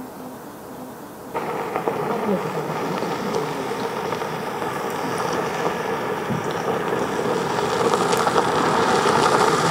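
Opel Astra driving slowly on a gravel road, its tyres crunching over loose stones with the engine running underneath. The sound comes in suddenly about a second in and grows louder as the car comes nearer.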